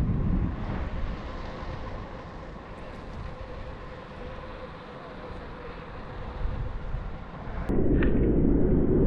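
Steady low rumble of a moving vehicle with a faint steady hum. About three-quarters of the way in, it jumps to a louder, deeper rumble.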